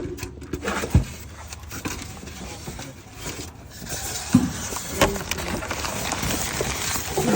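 A few sharp knocks and clatter from handling a refrigerator, over steady background noise.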